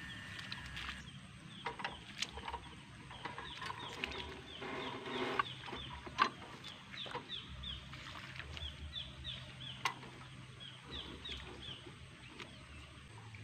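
Birds chirping over and over in short falling notes, with a few sharp metal clicks as control cables are handled and fitted on a hand tractor's handlebars.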